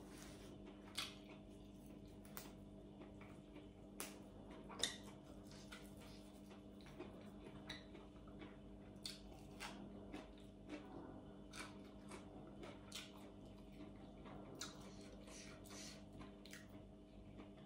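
Faint, irregular eating sounds: crisp crunches and wet mouth clicks from chewing raw greens and boiled pig stomach, with two louder clicks about one and five seconds in. A steady low hum runs underneath.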